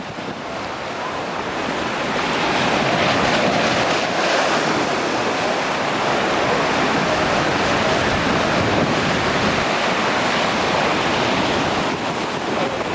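Storm surf crashing over a seawall and washing across a flooded waterfront promenade, a dense, steady rush of water, with strong wind buffeting the microphone.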